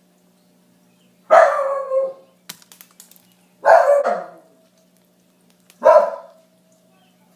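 A dog barks three times, about two seconds apart, each bark drawn out for about half a second. A few faint clicks come between the first and second barks.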